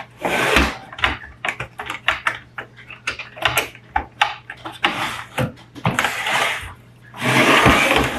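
Screws being backed out of the side of a fuser unit's plastic case with a screwdriver: a run of small clicks and taps, broken by four short noisy bursts of about half a second each, the loudest near the end.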